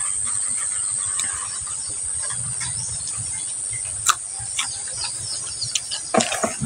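Insects, crickets or cicadas, buzzing in a steady, high, even drone. A sharp crunch about four seconds in comes as a raw green pod is bitten, and a cluster of clicks follows near the end.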